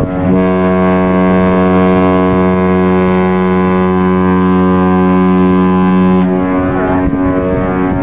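Two cruise ships' horns sounding together. A deep horn holds one long steady blast that cuts off about six seconds in, while a slightly higher-pitched horn sounds steadily throughout.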